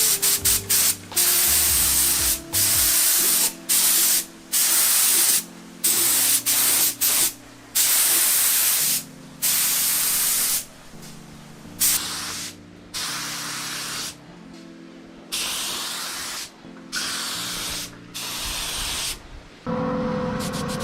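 Primer being sprayed onto a motorcycle frame for its second coat: a hiss in short repeated bursts, about one every second or two, starting and stopping sharply as the nozzle is pressed and released, with background music underneath.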